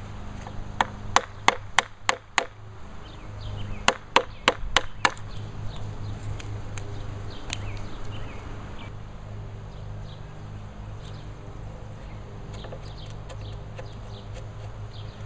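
Wood chisel struck with a mallet as it chops into a timber sill: a quick run of about six sharp knocks, a short pause, then about five more. Quieter ticking and scraping follow as the chisel is worked by hand.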